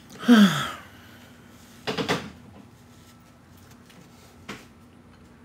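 A man's short vocal groan or sigh that falls in pitch, then a brief clatter about two seconds in and a faint click near the end.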